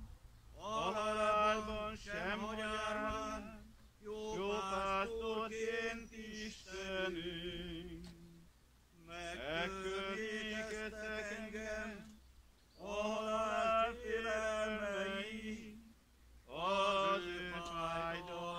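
A man's voice singing an unaccompanied Hungarian funeral chant, in phrases of about three seconds with short breaks between them.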